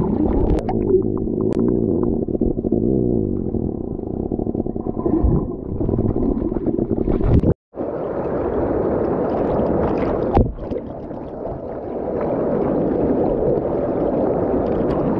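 Stream water heard underwater: a muffled rumble and gurgle with many small clicks. After a brief dropout about halfway through, shallow stream water rushing and splashing over boulders, heard right at the water surface.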